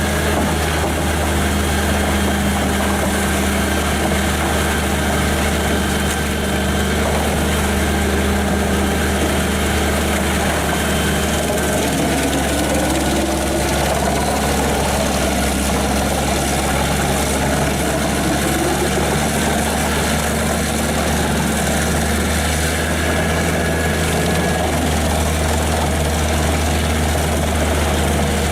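Diesel engine of a large tracked drum wood chipper, the Pezzolato PTH 1200/660 M, running steadily with a deep, even hum under a constant mechanical din.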